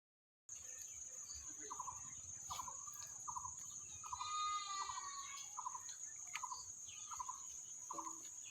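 Outdoor animal sounds starting suddenly about half a second in: a steady high insect trill, with short calls repeating about once or twice a second and a longer pitched call near the middle.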